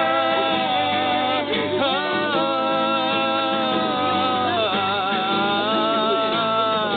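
A group singing a song with long drawn-out notes held for several seconds each, without clear words.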